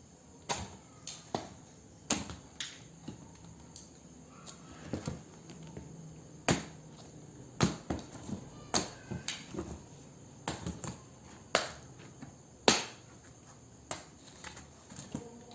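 A blade chopping into a watermelon, with about twenty sharp knocks at an uneven pace.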